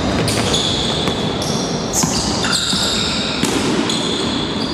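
Basketball game in a gym: a ball bouncing and sneakers squeaking on the hardwood floor, with high-pitched squeaks starting and stopping throughout, echoing in the hall.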